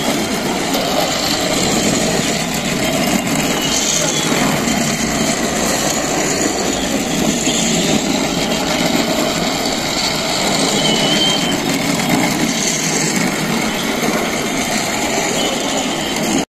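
Battery-powered toy train running steadily round a plastic track, its small motor and gears whirring.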